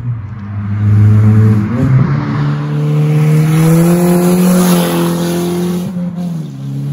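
VW GTI's turbocharged 2.0-litre four-cylinder running loud through a PVC straight-pipe exhaust with a heavy drone. The pitch steps up about two seconds in, climbs slowly as the car pulls, and drops back near the end.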